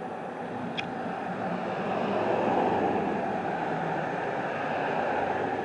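Passing vehicle noise, a steady rushing sound that swells about two seconds in and holds.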